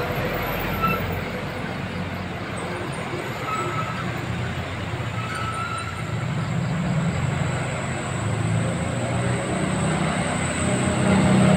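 Road traffic climbing a hill: light diesel trucks, cars and motor scooters driving past, a steady mix of engine noise and tyre hiss. The low rumble of truck engines grows louder in the second half.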